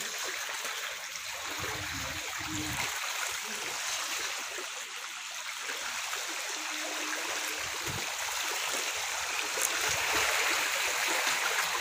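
Floodwater running with a steady, even hiss, with a few soft low thuds about two seconds in and again near eight seconds.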